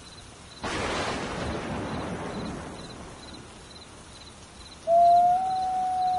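A sudden crash about half a second in that fades away over about two seconds. Near the end a wolf starts one long howl that rises slightly at first and then holds steady.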